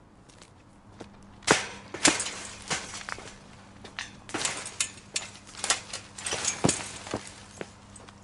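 A metal fence rattling and clinking as someone climbs it: a run of irregular sharp metallic rattles and jangles that starts about a second and a half in and thins out near the end.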